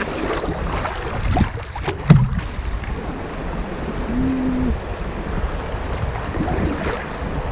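Kayak paddle dipping and splashing, with creek water rushing past the boat and wind buffeting the microphone. A sharp knock comes about two seconds in.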